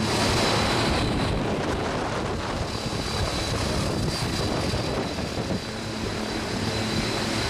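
A propeller-driven jump plane's engine running close by: a dense, steady rush of engine and propeller noise with a thin, steady high whine over it.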